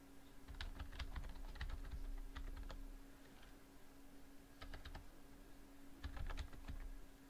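Computer keyboard typing in three bursts of quick keystrokes: a long run about half a second in, a short one past the middle and another near the end. A faint steady hum lies underneath.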